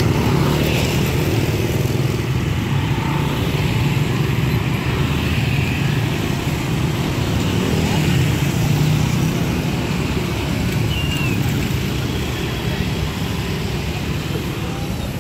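Motorcycle and scooter traffic passing, a steady mix of small engines running, with people's voices in the background; the engine noise eases off slightly near the end.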